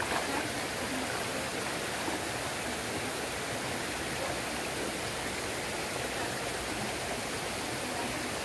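Steady rush of stream water flowing among boulders.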